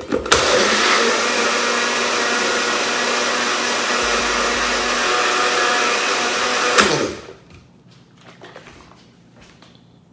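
Single-serve cup blender running steadily for about six and a half seconds, blending frozen fruit, yogurt and almond milk into a smoothie. It stops suddenly with a click about seven seconds in.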